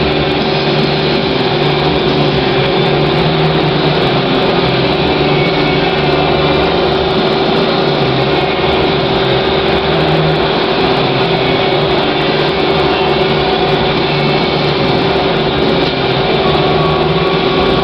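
Electric hoist motor raising the scoreclock, running as a steady mechanical drone with a constant hum. A faint higher tone joins near the end.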